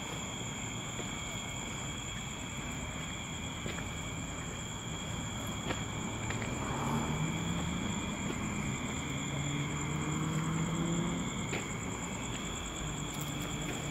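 Night insects, crickets, trilling steadily in several high, unbroken tones. From about halfway through, a distant engine hum swells and then fades.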